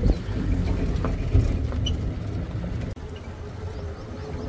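Safari vehicle driving: engine and road noise as a steady low rumble, with a sharp knock about a second and a half in. About three seconds in the sound drops suddenly to a quieter, steadier rumble with a faint hum.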